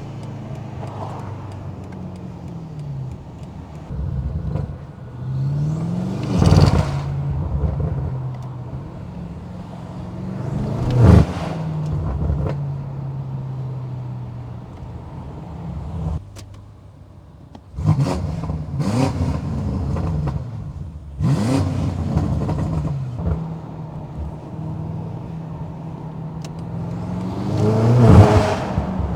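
Stage 2 tuned 2020 BMW M8 Competition's twin-turbo 4.4-litre V8 being driven hard, its pitch climbing to a loud peak and dropping back again and again as the car accelerates and shifts. It goes briefly quieter a little past the middle before revving up again.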